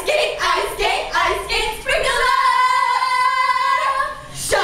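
Young women's voices singing together, apparently unaccompanied: short sung syllables, then one long high note held for about two seconds, then more singing near the end.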